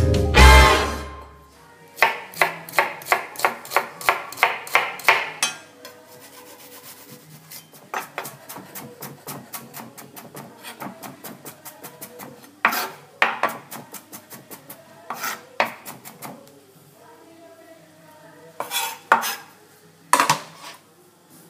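The end of a music jingle about a second in, then a kitchen knife chopping red onion on a wooden cutting board: a quick run of even knife strikes, about three a second, followed by lighter scattered taps and a few louder single knocks.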